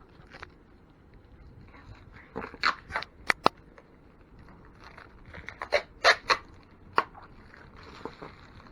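Protective plastic film being peeled off a new PC part, giving sharp crackles and snaps in two clusters a few seconds apart; it comes off sticky rather than cleanly.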